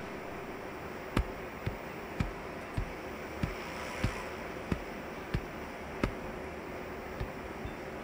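Footsteps of shoes on a concrete porch and steps, a short knock at a steady walking pace of a little under two steps a second, over a steady hiss and faint hum.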